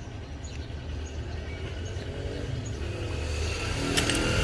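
Steady low background rumble, slowly getting louder, with a single sharp click about four seconds in.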